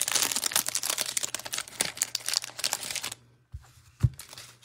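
Cellophane wrapper crinkling as it is peeled off a stack of fifty trading cards, stopping about three seconds in. Then two short, soft knocks as the card stack is set on the table.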